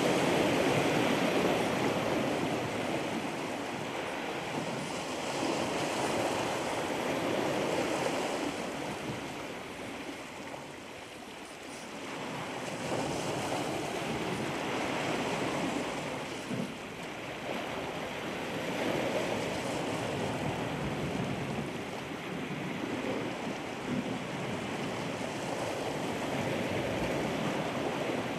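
Ocean surf washing ashore: a steady rush of water that swells and eases every few seconds.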